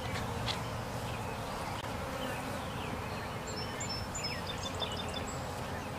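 Honey bees buzzing around an opened hive: a steady hum of many bees.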